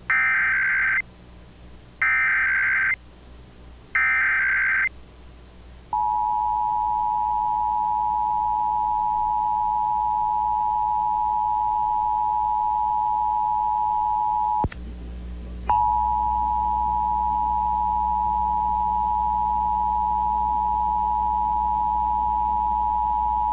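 Emergency Alert System Required Monthly Test signalling: three one-second bursts of SAME header data tones, a second apart, then the EAS two-tone attention signal, a steady dual tone. The dual tone breaks off with a click for about a second partway through, then resumes.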